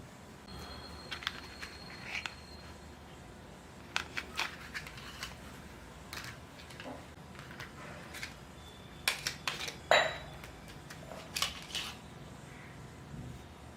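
Small plastic pieces of a Barbie toy kitchen set being handled, with irregular clicks and taps as they are fitted together and set down; the loudest knocks come in a cluster about nine to ten seconds in.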